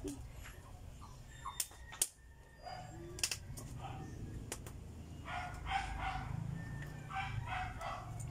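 A dog barking in repeated bursts through the second half, over a low steady rumble, with a few sharp knocks and cracks earlier as firewood is shifted under the wok.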